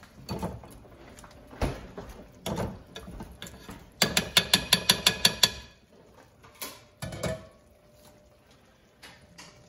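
Metal pastry blender mashing simmering tomatoes in a skillet, breaking them down for tomato jam: a few separate knocks against the pan, then a quick run of about eight clinking strikes around the middle, and one last tap.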